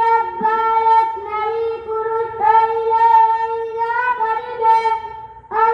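A boy's high voice, amplified through a microphone, singing long held melodic notes with small turns in pitch. The phrases break for a breath about two and a half seconds in and again near the end.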